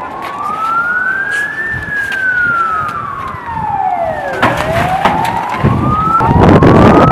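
A siren wailing in slow rising and falling sweeps, each rise or fall taking two to three seconds. A loud rushing noise joins it near the end.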